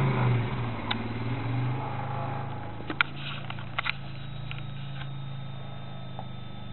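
Polaris ATV engine running steadily, louder in the first second or two, with a few short sharp clicks around the middle.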